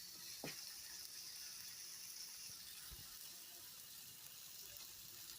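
Hamburger patties sizzling in a frying pan: a faint, steady high hiss, with a couple of light ticks.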